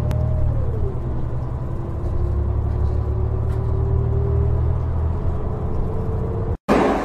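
City bus running, heard from inside the cabin: a steady low rumble with a motor whine that drops about a second in, then slowly climbs as the bus gathers speed. Near the end the sound cuts out for a moment and a loud rush of noise follows.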